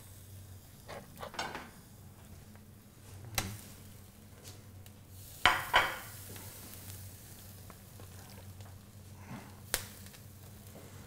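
Kitchen clatter of pans and utensils as steaks go onto a grill, with a pair of sharp knocks about halfway through and a faint sizzle.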